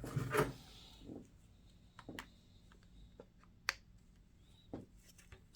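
A few scattered, faint light clicks and taps from hands handling a plastic scale model aircraft and its packaging, the sharpest click a little past the middle.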